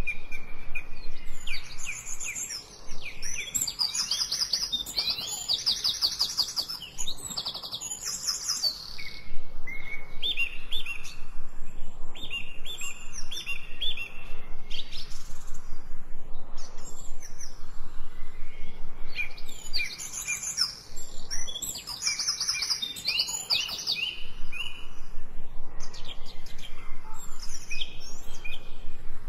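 Wild songbirds singing in woodland: a busy mix of high chirps, fast trills and runs of repeated whistled notes.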